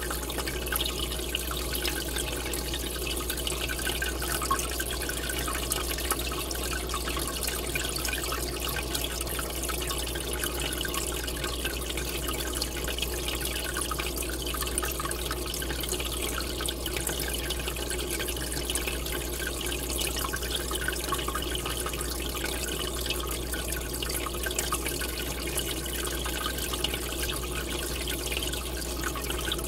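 Aquarium air bubbler sending a stream of bubbles up to the surface: a steady, crackling bubbling and trickling of water over a low steady hum.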